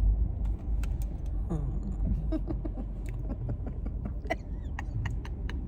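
Car interior noise while driving: a steady low road and engine rumble, with scattered light clicks and faint voices in the background.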